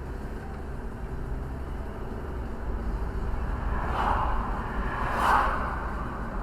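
Steady road and engine rumble of a car being driven, with two brief louder swells of noise about four and five seconds in.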